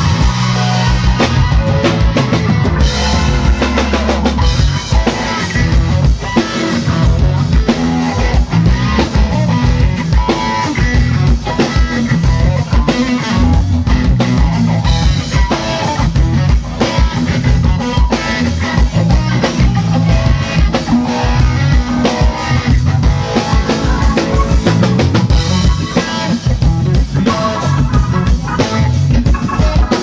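Live band playing loud instrumental rock: a drum kit keeping a steady beat under electric guitar and keyboard.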